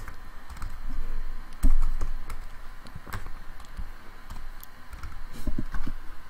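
Typing on a computer keyboard: irregular keystrokes, with one louder knock about a second and a half in.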